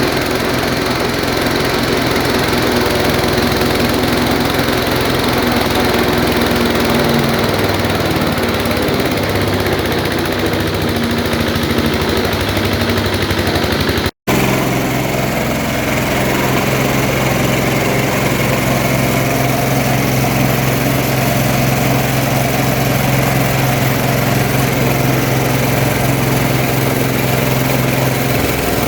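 Chicken-feather grinding machine running steadily with a loud engine-driven hum and grinding rattle. The sound cuts out briefly about halfway through, then the machine runs on with a steadier hum.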